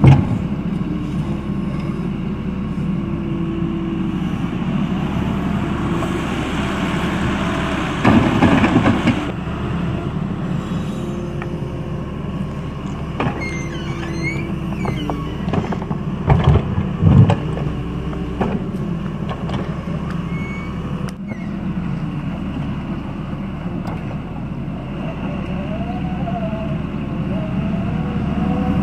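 Diesel engine of a Doosan D140W wheeled excavator running steadily, with two louder, noisier stretches about eight and sixteen seconds in.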